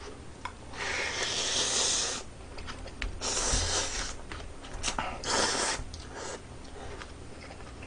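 A person slurping noodles from a bowl, three slurps with short pauses between them, the first the longest.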